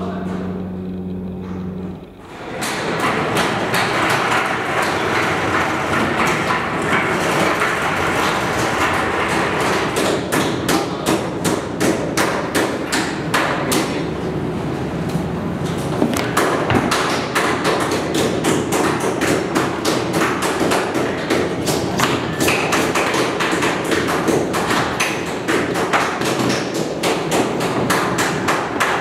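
Meat-processing workroom at work: a steady rushing noise with frequent knocks and thuds from handling and cutting carcasses. The knocks come thicker from about ten seconds in. A low steady hum runs for the first two seconds and then gives way to the noise.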